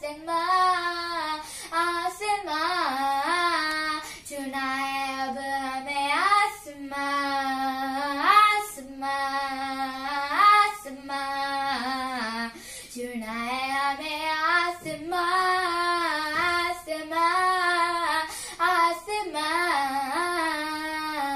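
A girl singing a Hindi song solo without accompaniment, with long held notes that slide up in pitch.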